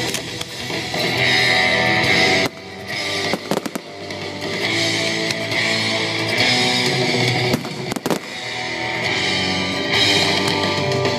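Loud rock music with electric guitar playing over a sound system, broken by several sharp cracks and bangs.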